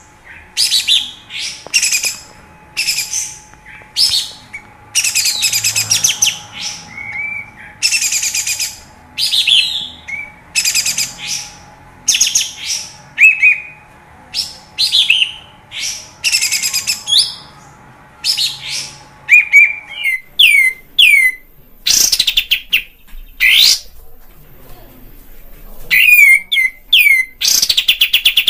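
Kapas tembak bulbul calling hard: loud, harsh chattering bursts about once a second. About two-thirds of the way in, these give way to quick runs of clear, sharply falling whistled notes. It is a fired-up 'gacor' call played as a lure to rouse a caged bird's fighting spirit.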